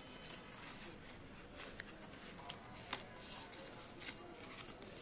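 Faint rustling and a few light clicks from a small plastic portable fan being handled and pulled out of its cardboard box.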